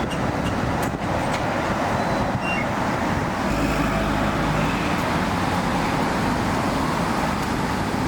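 Street traffic noise: a steady roar of passing road vehicles. A vehicle engine's low hum joins about three and a half seconds in.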